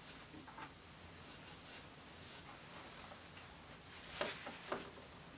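Faint scratchy strokes of a paintbrush dragging oil paint across canvas: several short strokes, the loudest two about four seconds in.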